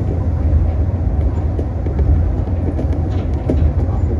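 Tokyo Monorail train running along its elevated straddle-beam guideway, heard from the front of the car: a steady low hum of the motors and rubber tyres, with a few faint ticks.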